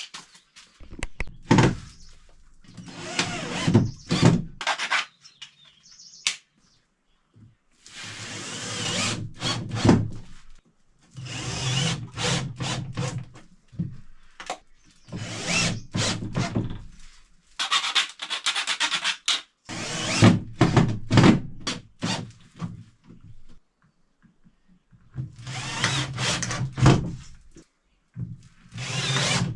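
Electric drill working on a wiring board, run in about seven short bursts of one to two seconds each, with knocks and scraping between them.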